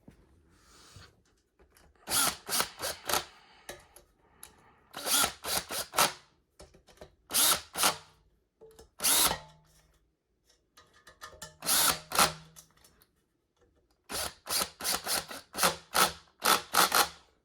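Power drill/driver running in several short bursts, stopping and starting, as it drives screws during reassembly.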